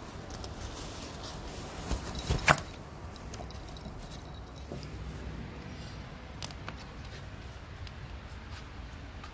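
A puppy scrambling in a collapsible fabric play tunnel: rustling with a few sharp clicks and rattles, the loudest cluster about two seconds in and another single click later on.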